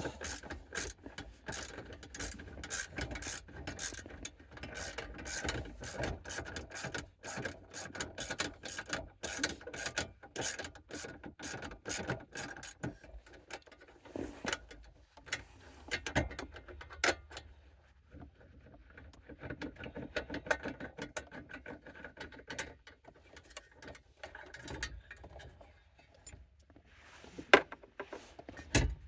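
Hand ratchet wrench clicking in quick runs as bolts holding a metal plate are backed out. The clicking thins out after about halfway into scattered clicks and knocks, with one sharp knock near the end.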